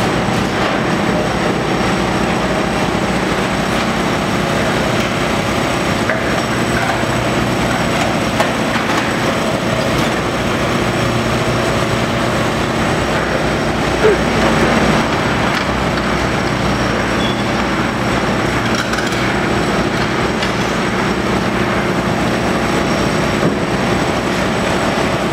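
Hitachi ZAXIS 210LC tracked excavator running steadily, its diesel engine and hydraulics working the demolition attachment, with a few knocks from the attachment and debris.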